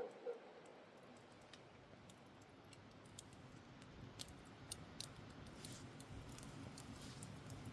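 Near silence: faint background hiss with a few scattered small clicks, a little more frequent about halfway through.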